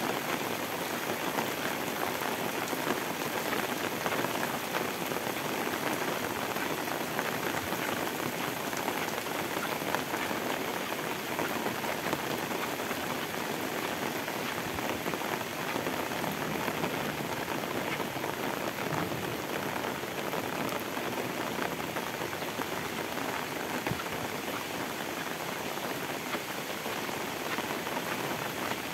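Heavy rain falling steadily on a paved lane and the leaves around it: a dense, even hiss that holds without a break.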